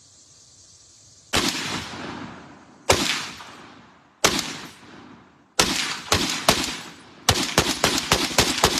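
M1919 Browning belt-fed machine gun firing .30-06 rounds: three single shots about a second and a half apart, then a short burst of about four, then a longer burst of rapid fire at about seven rounds a second. Each shot echoes.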